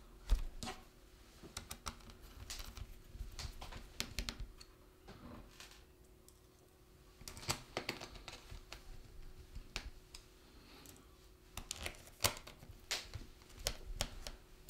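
Irregular small clicks and taps of a screwdriver and fingers on a laptop's plastic bottom cover as it is clipped and screwed back on, over a faint steady hum.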